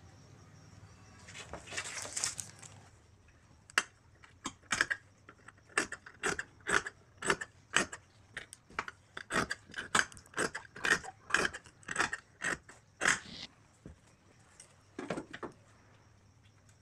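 Cloth being handled and folded at a tailoring table: a brief rustle, then a run of short crisp clicks, about two a second for some ten seconds.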